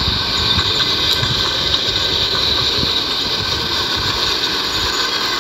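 Miniature zoo train running past on its narrow-gauge track: a steady rumble of engine and wheels with a hiss over it.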